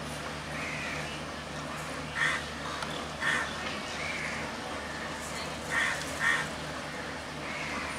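Birds calling with short, sharp calls, about seven of them, the loudest a little over two and three seconds in and a pair near six seconds, over the steady low hum of an idling diesel locomotive.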